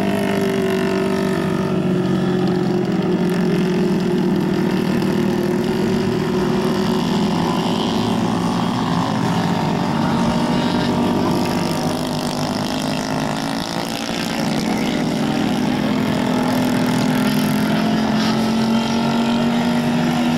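110cc kart engines running, their pitch drifting slowly up and down with throttle and passing karts, a little quieter around twelve to fourteen seconds in.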